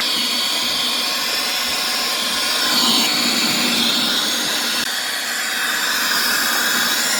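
Hand-held hair dryer blowing steadily, melting ice off a refrigerator's frozen-over evaporator and its ice-plugged defrost drain.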